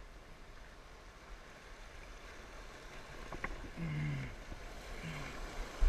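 Rushing creek water heard from a kayak heading into a small rapid; the water noise grows louder toward the end. A single sharp click comes a little past halfway, followed by a couple of short low-pitched sounds.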